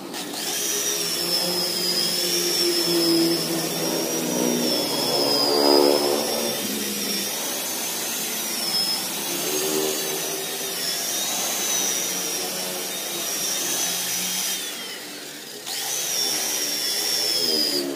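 Electric rotary car polisher with a foam pad buffing car body paint, its motor running with a high whine that wavers in pitch. It stops for a moment about three seconds before the end and then starts again.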